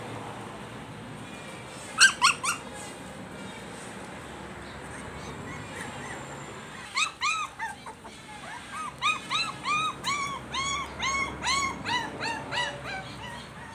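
Young puppies giving short, high, squealing yelps: three quick ones about two seconds in, then a run of them, two or three a second, from about seven seconds in, as they jostle at a food bowl.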